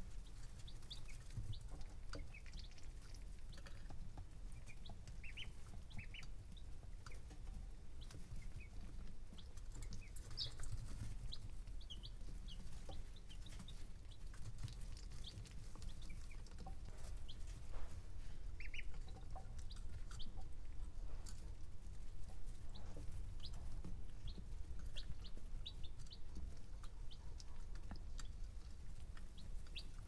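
Baby chicks and ducklings peeping softly in short, scattered chirps over a steady low background rumble.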